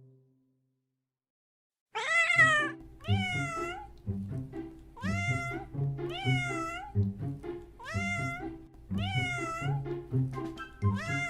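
Domestic cat meowing over background music, after about two seconds of silence. The meows come about once a second, mostly in pairs, each rising and then falling in pitch, about eight of them.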